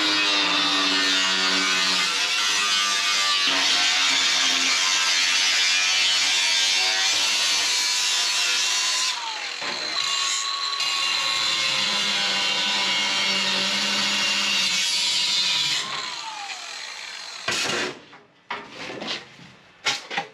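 Cordless angle grinder with a cut-off wheel slicing through steel car-body sheet metal: a harsh hiss with a steady whine, in two long cuts. Each cut ends with the motor winding down, the first about nine seconds in, the second about sixteen. Near the end, a few clanks of loose sheet metal being handled.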